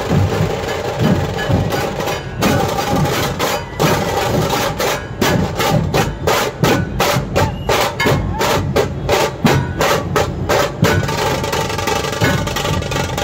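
Dhol-tasha ensemble playing loudly: many large dhol barrel drums with tasha drums beating together. In the middle the whole group strikes sharp, evenly spaced unison strokes, about three or four a second, before going back to dense, continuous drumming near the end.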